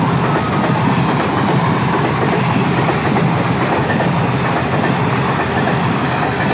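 A through train running at speed past a station platform: a loud, steady rush of wheels on rails that holds throughout.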